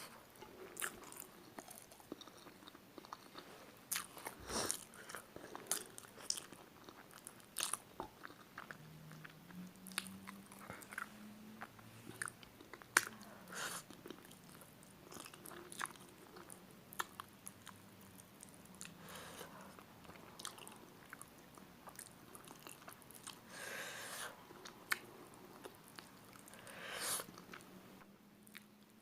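Close-miked chewing and biting of spicy chicken feet: wet, sticky mouth clicks and crunches, irregular and fairly quiet.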